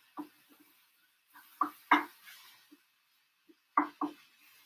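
Wooden spoon stirring greens in a skillet, knocking against the pan in a few short pairs of taps.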